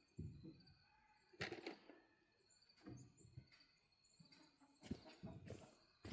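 Faint scattered knocks and rustles from handling, with small birds chirping faintly in the background.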